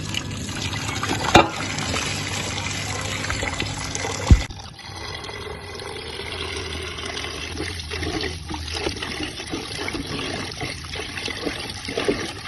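Water pouring and trickling, with two sharp knocks, one about a second and a half in and one about four seconds in.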